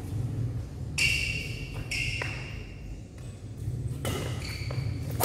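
Badminton rally: rackets striking a shuttlecock about three times, roughly a second apart, each hit a sharp crack with a short high ring. A steady low hum runs underneath.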